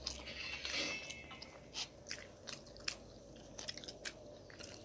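A person chewing oxtail close to the microphone: irregular sharp wet clicks and smacks of the mouth.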